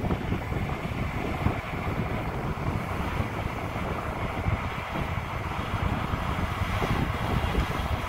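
New Holland combine harvester running steadily as it harvests swathed canola, with wind buffeting the microphone.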